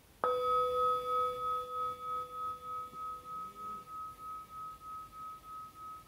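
Hand-held metal singing bowl struck once with a padded mallet, then ringing on with a slow wavering pulse, about three beats a second, as it fades. Its lower tone dies away within a few seconds while the higher tone keeps sounding.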